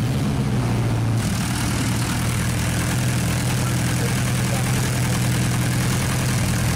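Lada four-cylinder engine running with no crankshaft bearings fitted, idling steadily without audible knocking.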